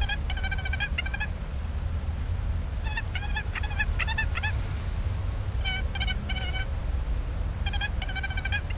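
An animal calling in quick runs of four to six short, high, even-pitched notes, a run every two seconds or so, over a steady low rumble.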